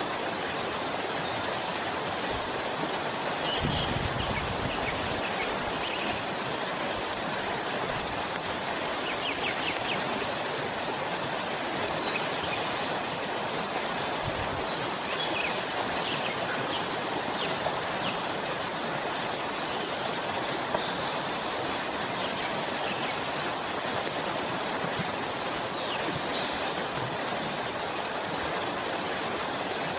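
Small forest waterfall on a stream, water splashing and rushing steadily, with faint, scattered bird chirps above it.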